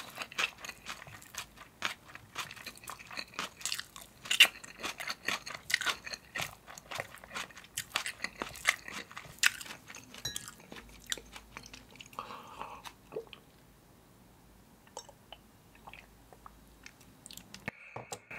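Close-miked chewing of aged-kimchi spicy noodles: dense, crunchy bites for about ten seconds, then fading to a few quiet chews.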